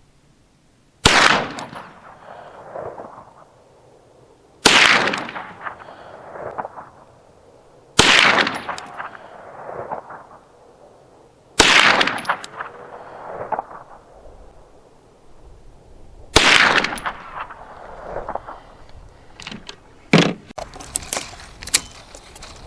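Five slow, deliberate shots from a Ruger 9mm carbine, spaced about three to five seconds apart, each ringing off in an echoing tail. A few lighter clicks and a clack follow near the end.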